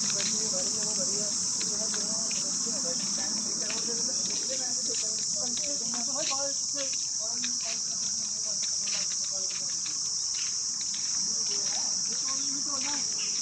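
Insect chorus: a steady, high-pitched drone that holds unbroken throughout.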